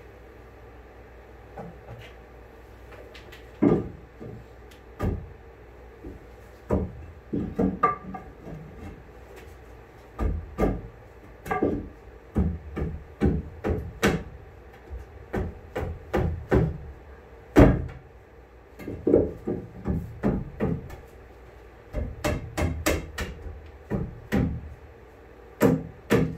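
Irregular knocks and thumps of hand work on a fibreglass boat hull, some single and some in quick clusters of two or three.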